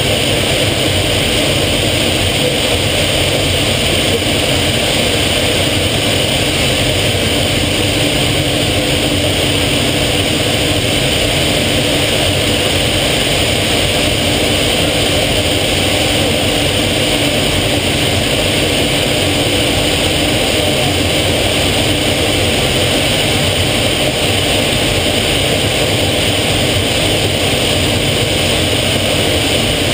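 Steady engine and rushing-air noise inside the cockpit of a small aerobatic aircraft in flight, loud and unbroken.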